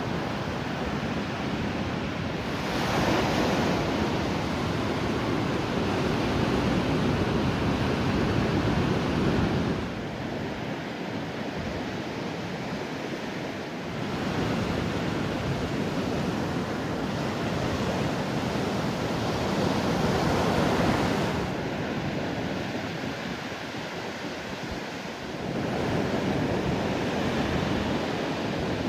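Ocean surf breaking on a beach: a steady rush of waves that swells and fades in long surges of several seconds each.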